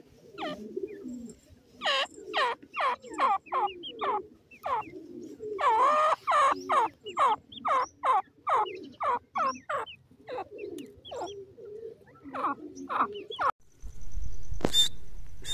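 Grey francolins calling: runs of short, repeated notes, about two to three a second, each note bending in pitch, with brief pauses between the runs. Near the end the calls stop and a low rumble takes over, with one sharp click.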